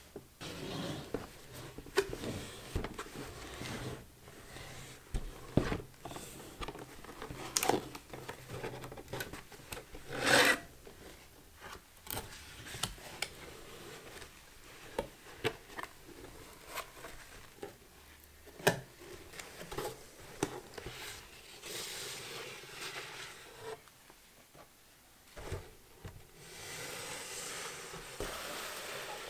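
A cardboard shipping box being handled and opened with leather-gloved hands: cardboard rubbing and scraping, flaps being worked open, with scattered sharp taps and clicks. There is a louder rasping burst about ten seconds in, and longer stretches of rubbing near the end.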